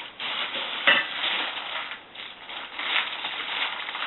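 Plastic packaging crinkling and rustling as it is pulled and handled, with a sharper crackle about a second in.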